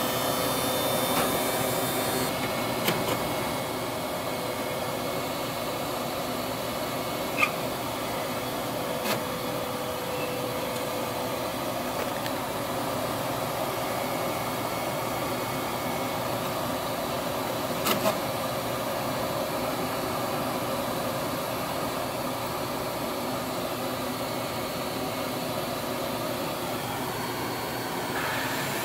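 Sparx automatic skate sharpener running, its grinding wheel grinding along a steel skate blade with a steady whirring grind. A few short sharp clicks sound over it.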